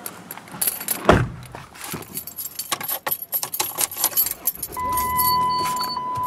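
A bunch of vehicle keys jangling and clicking in the hand, with a heavier clunk about a second in. Near the end, a steady electronic warning tone from the van starts and holds over a low hum.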